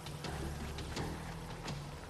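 Low, sustained background music, with a few irregular light crunching footsteps on dry leaf litter.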